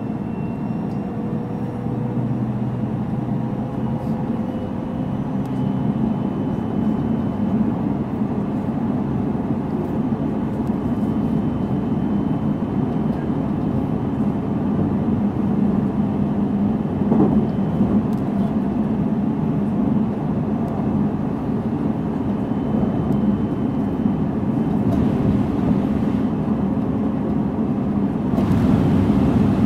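Onboard running sound of a JR Central 313 series electric multiple unit: a steady rumble of wheels on rail and car body. Faint high tones in the first few seconds fade out, and the noise grows louder near the end.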